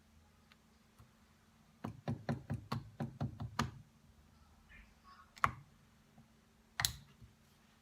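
A quick run of about nine sharp knocks, then two single knocks a second or so apart, from hard tapping on the workbench during repair of a rotary hammer drill.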